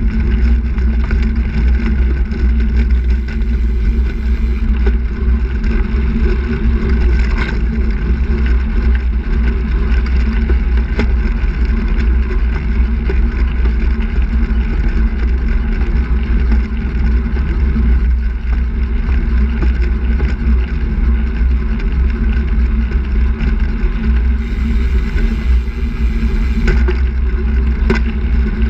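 Steady low wind rumble on the microphone of a camera mounted on a moving handbike, with rolling noise from the tyres on asphalt.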